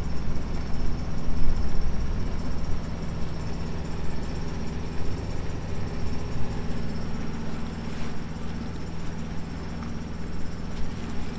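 Sailboat's inboard auxiliary engine running steadily under way, a low even hum over a steady rushing noise.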